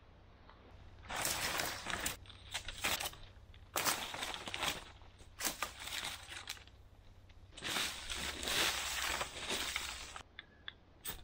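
Dry leaf litter and sticks crunching and rustling in several bursts of one to two seconds, ending in a few faint ticks.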